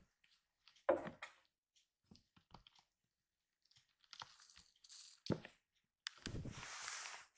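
Two kittens play-fighting on a wooden floor: scattered thumps and scuffles of bodies and paws, loudest a thump about a second in and a sharp knock past the middle, then a longer scuffling rush near the end.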